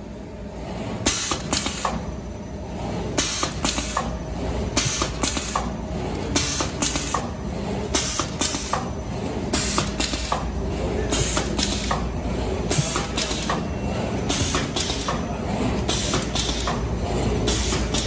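Automatic plastic hanger bag making machine running: short bursts of air hiss from its pneumatic cylinders come in clusters of two or three about every second and a half, over a steady low machine hum. The hissing starts about a second in.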